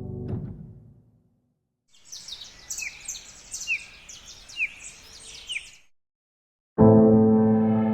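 A song fades out, then about four seconds of outdoor ambience with a bird calling: four short falling chirps about a second apart over higher twittering and a faint hiss. New ambient music with piano starts loudly near the end.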